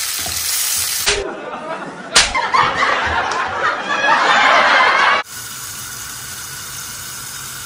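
Sliced tomatoes and onions sizzling in a frying pan. About a second in, an inserted film clip of about four seconds cuts across it: a sharp smack, then a person's vocal outburst. After that comes a steadier, quieter sizzle from the pan under its glass lid.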